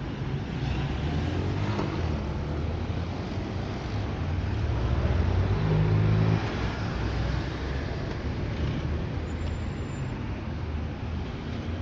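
Slow city traffic: cars passing close by at low speed with their engines running. The car passing nearest is loudest between about five and six seconds in, and its sound drops off suddenly just after.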